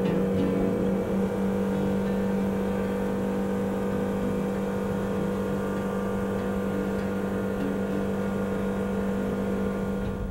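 Outboard motor of a fishing boat running steadily at speed.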